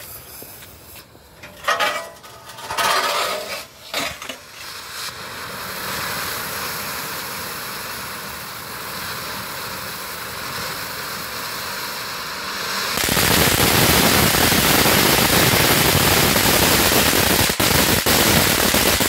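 Bright Star ground fountain firework burning: uneven sputters and a few pops as it lights, then a steady hissing spray of sparks that grows much louder and fuller about 13 seconds in, with rapid crackling.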